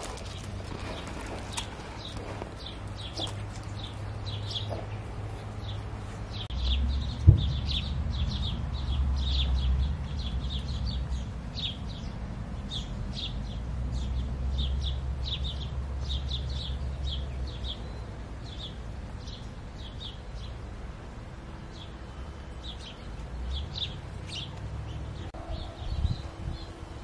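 Small birds chirping over and over, short high chirps about two a second. Under them is a low, steady rumble from about six seconds in until near the end, and a single sharp knock about seven seconds in.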